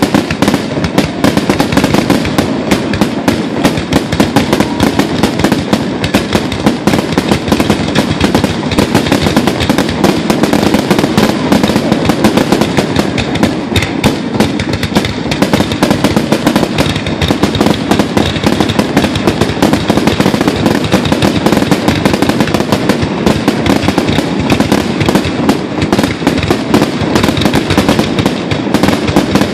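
Fireworks display going off as a dense, unbroken barrage: many loud bangs a second, overlapping with no gaps.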